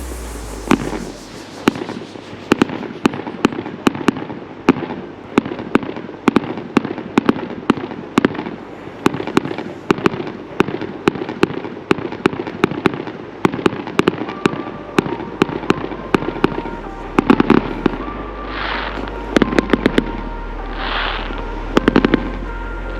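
Fireworks display: a rapid, unbroken series of aerial shell bursts, about two to three bangs a second, with louder clusters of bangs and crackling bursts in the last third.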